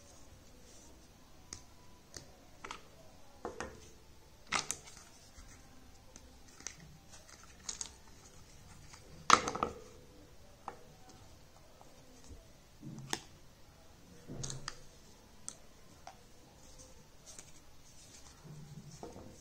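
Small plastic toy pieces clicking and tapping as they are unpacked and handled: irregular light clicks and knocks, the loudest about nine seconds in.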